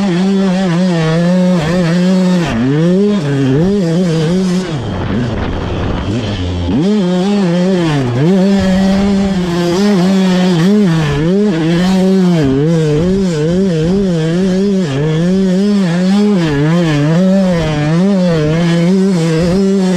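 KTM 200SX single-cylinder two-stroke motocross engine revving hard as the throttle is worked on and off, its pitch rising and falling in quick waves. The revs sag lower about five seconds in, then climb sharply again around seven seconds.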